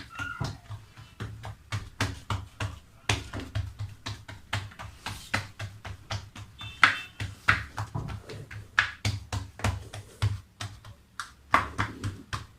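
Quick, irregular taps and soft thuds, several a second, from hands working pizza dough in a baking pan.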